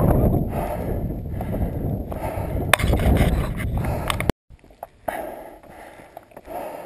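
Wind buffeting the camera microphone, a loud low rumble, with one sharp knock a little before halfway. About two-thirds in the sound cuts off abruptly and returns fainter after a short silence.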